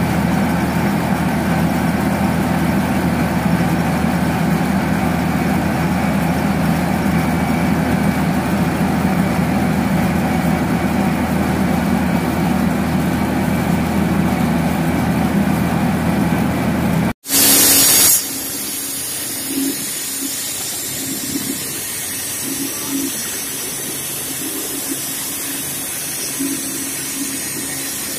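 Heavy diesel engine of a wheeled runway-repair machine running steadily. About two-thirds of the way in the sound cuts out, a short loud blast follows, and then a steady hiss of spraying with a few light knocks.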